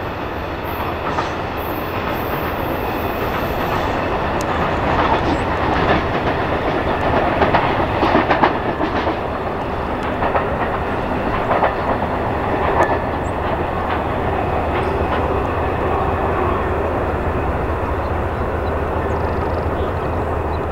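Amtrak California Zephyr passenger train of double-deck Superliner cars rolling along the track: a steady rumble of wheels on rail, with scattered clicks and clacks that bunch up between about four and thirteen seconds in.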